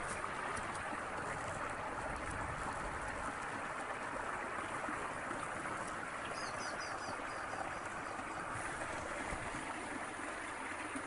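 Small stream running steadily over rocks. About six seconds in, a bird gives a quick series of high chirps that trail off.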